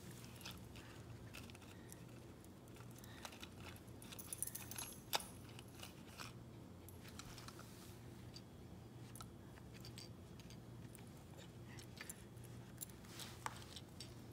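Faint, scattered clicks and rattles of an orange plastic toy capsule and the small plastic toys inside it being handled. The sharpest click comes about five seconds in.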